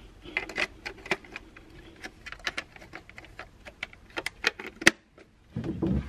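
A handheld label maker being handled: a quick, irregular run of small plastic clicks and taps, about several a second, with a louder rustling bump near the end.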